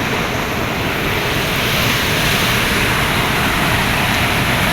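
Chepkiit waterfall rushing with a loud, steady roar of water, swollen and running strong after rain.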